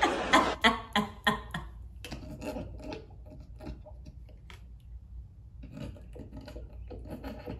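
A woman laughing hard: a quick run of breathy laughing bursts over the first second and a half, then quieter, stifled breathy laughs, muffled by her hand near the end.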